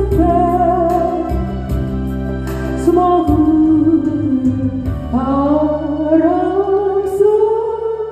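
A singer holding long sung notes of a slow Korean ballad over a band backing track, with a long note that slides upward about five seconds in and is held to the end.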